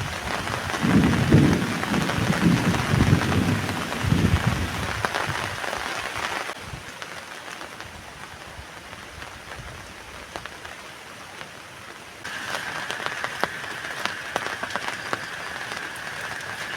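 Heavy rain falling on a tent, with low gusty rumbles in the first few seconds. The sound changes abruptly twice: it turns quieter after about six seconds, and from about twelve seconds a steady high tone sits over the rain.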